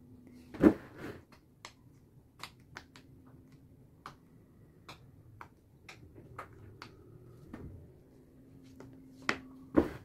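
Bubbles of silicone pop-it fidget toys being pressed in by a child's fingers: irregular soft pops, about two a second, with a louder knock about a second in and two more near the end.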